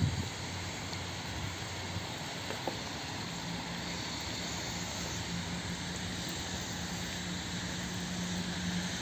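Steady outdoor hiss with the low, even hum of a distant engine, which grows stronger about three seconds in.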